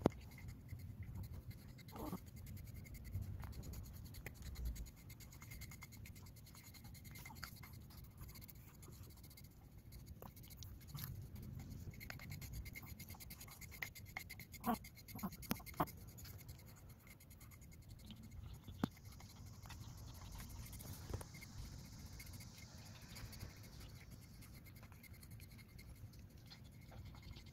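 A metal-toothed deshedding comb scratching through a short-haired Chihuahua's coat, pulling out loose shedding undercoat in faint, irregular strokes, with a few sharper clicks.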